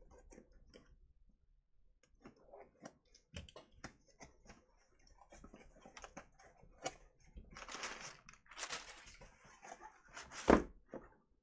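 A cardboard shipping box being handled: scattered light clicks and scrapes, two longer scraping stretches in the second half, and a sharp thump near the end, the loudest sound.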